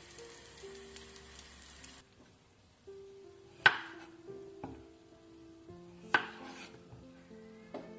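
Bread slices sizzling in oil in a frying pan for about two seconds, cutting off abruptly. Then a kitchen knife slicing through cucumber and knocking sharply on a bamboo cutting board, two loud knocks about two and a half seconds apart with a few lighter cuts, over soft background music.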